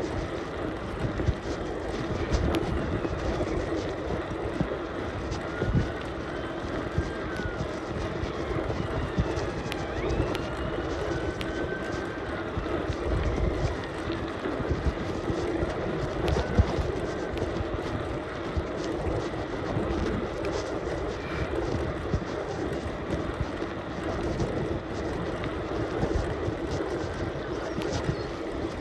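Bicycle riding noise: steady wind rumble on the microphone over a constant hum from the rolling bike, with scattered small clicks and rattles.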